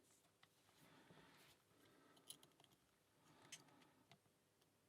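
Near silence, broken by a few faint small clicks of a lock pick and tension tool working the pins of a brass padlock.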